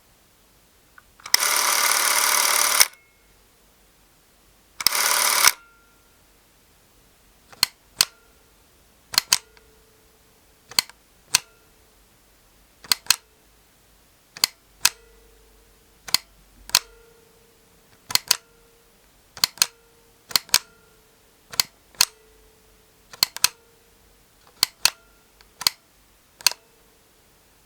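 Porst Reflex ZR422 Super 8 movie camera: two short bursts of its mechanism running, the first about a second and a half long, the second about half a second, then a long series of sharp mechanical clicks, many in close pairs, from its buttons and switches.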